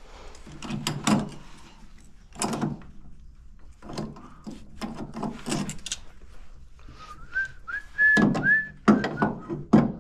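Wrench and metal parts knocking and clanking on a tractor in a run of separate strikes, loudest near the end. A person whistles a few wavering, rising notes about seven seconds in.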